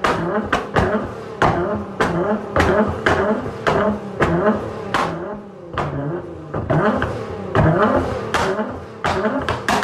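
Nissan GT-R's twin-turbo V6 being revved again and again through a catless valved aftermarket exhaust, with frequent sharp pops and bangs from the exhaust between the revs: unburnt fuel igniting in the exhaust, the afterfire that shoots flames.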